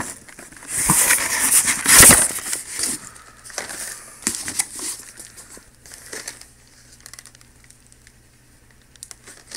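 Plastic bubble packaging crinkling and rustling as it is handled and pulled open, loudest in the first couple of seconds, then a few softer rustles and clicks that die away about six seconds in.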